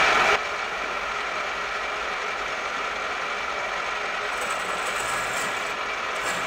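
Pillar drill running steadily while drilling 17/64 in tapping holes in a cast-iron A-series engine block. The sound steps down in level about a third of a second in, then stays even.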